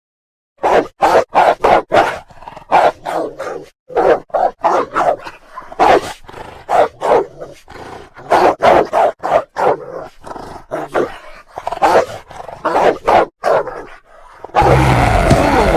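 Angry wolf barking and snarling in rapid short bursts, about three to four a second, then breaking into a longer, louder growl near the end.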